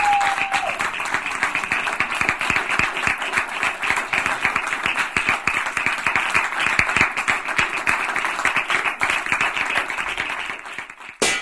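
Audience applause, a dense patter of many hands clapping, thinning out near the end, then cut off by a sudden loud crash just before the end.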